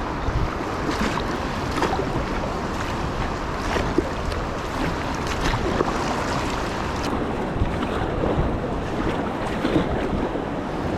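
Water sloshing and splashing around a kayak under way, with short splashes every second or two, and wind buffeting the microphone.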